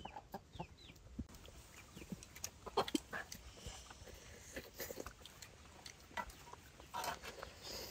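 Quiet eating noises: people chewing and smacking on chicken meat, with scattered small clicks of chopsticks against bowls and teeth. A few high bird chirps sound right at the start.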